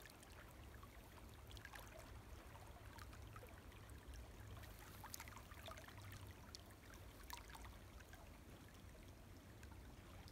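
Faint, steady babble of a small creek running over shallow riffles, with scattered tiny ticks in the water noise.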